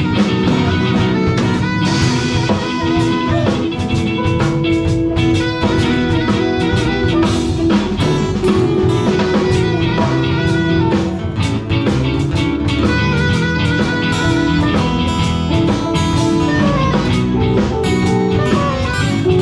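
Live blues band playing loudly, with guitar over a drum kit.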